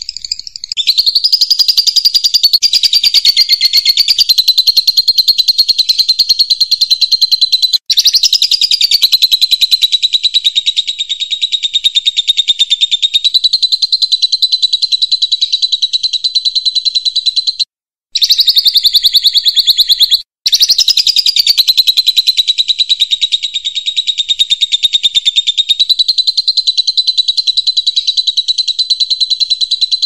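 A songbird singing a fast, continuous high-pitched trill, held for many seconds at a time. It breaks off briefly about eight seconds in and twice more just past the middle.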